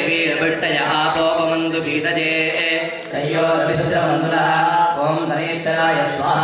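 Priests chanting Vedic mantras in a melodic recitation, with notes held steady and short breaks for breath, during a fire-offering homam.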